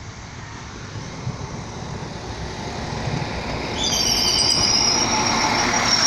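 Serbian Railways class 711 diesel multiple unit pulling in alongside the platform, its running noise growing louder as it nears. A little under two-thirds of the way in, a high-pitched brake squeal of several steady tones sets in as it slows to stop.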